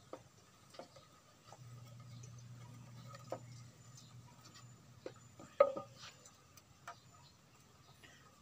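Light, scattered clicks and taps of a machete blade shaving and scraping a thin bamboo stick, with one sharper knock about five and a half seconds in.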